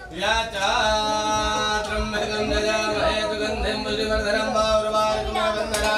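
Male voice chanting Sanskrit Vedic mantras in a melodic recitation, with long held notes.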